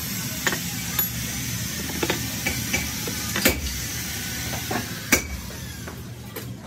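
A few sharp metallic clicks and knocks as aluminium pistons are handled and set down on a cast-iron engine block, the loudest about halfway and again about 5 seconds in, over a steady hiss.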